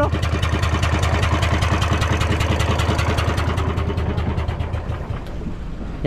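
Engine running with a fast, even knock and a steady low hum. It dies down about five seconds in.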